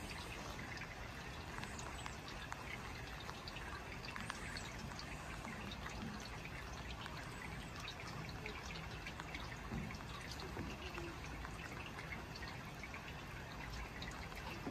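Light rain falling steadily, with many small scattered drips of water.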